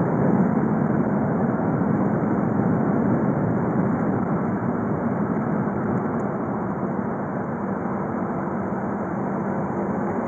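Four-cylinder 2.0 TDI diesel engine (BKD) of a VW Golf V running steadily under way, blended with road noise. The level dips slightly a little past the middle, then picks up again.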